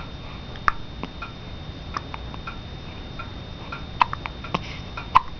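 Newborn baby hiccuping: several short, sharp hiccups at uneven intervals.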